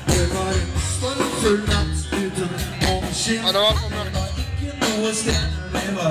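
Live rock band playing, with drum kit, bass and electric guitars keeping a steady beat and a wavering melodic line near the middle.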